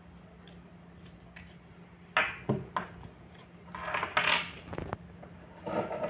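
Small metal padlock parts and tools clicking and clattering against a hard desk as they are handled and set down: a few sharp clicks about two seconds in, a longer rattling clatter around four seconds, and another short clatter near the end.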